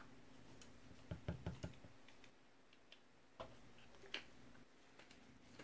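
Faint handling noise from a plastic ink-filling syringe and bottle being set down on a tabletop: a quick cluster of about four light knocks about a second in, then two single clicks later, over a faint steady hum.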